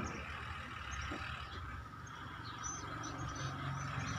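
Low background ambience: a steady hum with a faint steady noise band, and a few short, faint high chirps in the second half.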